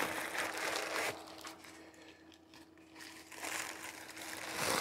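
Plastic air-pillow packing crinkling and rustling as hands grab it and pull it out of a cardboard box, going quieter in the middle and picking up again near the end.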